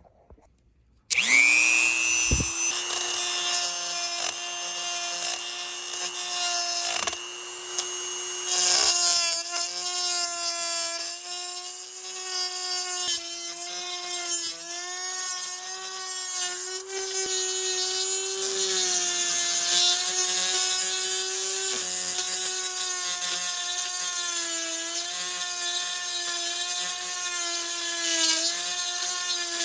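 A high-speed rotary tool spins up about a second in, then runs with a steady whine whose pitch dips slightly now and then as its bit grinds inside the intake port of a two-stroke engine cylinder, rounding out the port's corners and roughening its surface.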